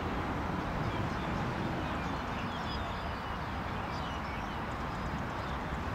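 Steady outdoor background noise, heavy in the low end, with faint short bird chirps now and then.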